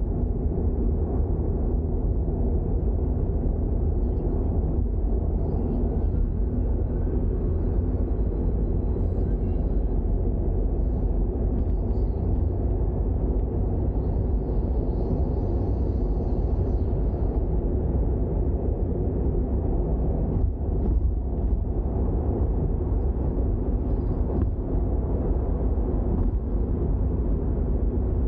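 Toyota GR86 being driven at a steady pace: a steady low rumble of engine and tyre noise.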